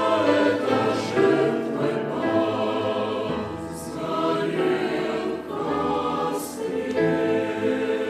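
Choir singing a slow Russian hymn in long held chords.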